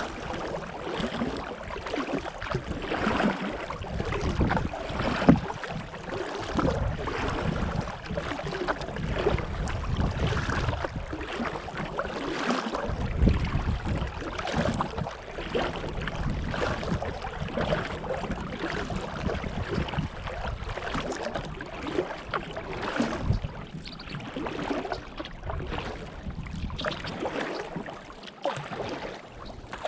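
Kayak paddling: the paddle blades dipping and splashing in the water in repeated irregular strokes, over a shifting low rumble of wind on the microphone.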